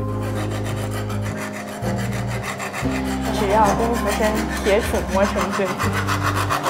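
Rasping rub of a silver rod being rolled and rubbed back and forth by hand to smooth it, in quick repeated strokes.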